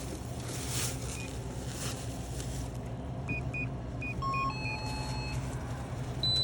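Electronic beeps from a card payment terminal processing a purchase: a quick run of short high beeps and a few held tones about halfway through, then one louder beep near the end, over a steady low hum.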